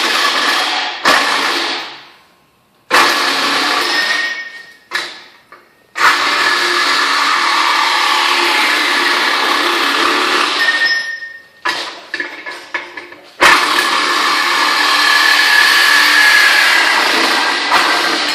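Ridgid Gen5x cordless reciprocating saw with a Diablo blade cutting through metal. It runs in several long passes that start abruptly, with short stops and a few quick on-off bursts between them.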